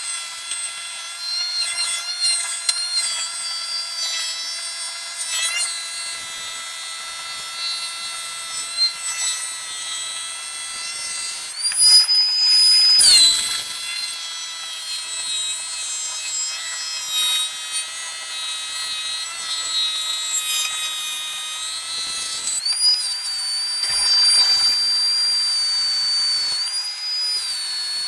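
Power tool working wood, running with a steady high whine whose pitch steps up about halfway through, drops back a second later, and rises again near the end.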